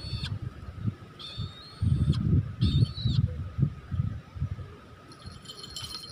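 Brahminy kite calling with three short, high squealing cries, over uneven bursts of low rumble.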